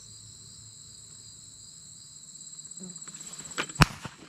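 Field insects, crickets among them, chirping steadily in high-pitched bands, one turning into a fast pulsing trill about two seconds in. Near the end come two sharp cracks, the second much louder.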